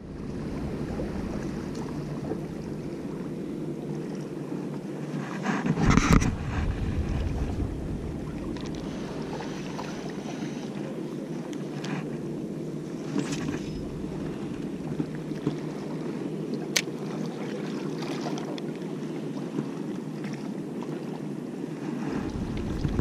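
Wind rumbling on an action camera's microphone over a steady wash of sea, with a loud gust or knock about six seconds in and a few small sharp clicks later.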